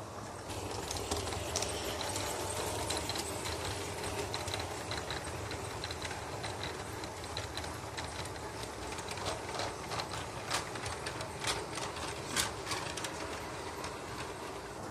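LGB garden-scale model train rolling past on brass track: a steady mechanical whirr and rattle that starts about half a second in, with wheels clicking on the track, the sharpest clicks coming between about 9 and 13 seconds in.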